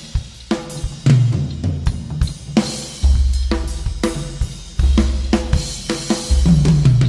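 Music with a drum kit: snare and bass drum hits, cymbals and hi-hat over a deep bass line.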